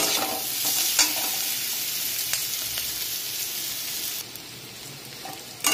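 Marinated paneer cubes with onion and capsicum sizzling in hot oil and ghee in a steel kadhai, stirred with a steel spatula that clicks and scrapes against the pan a few times. The sizzle drops away abruptly about four seconds in.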